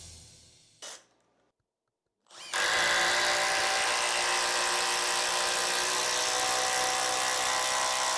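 Makita XDT14 brushless impact driver running steadily for about six seconds, starting about two and a half seconds in, after a short blip about a second in.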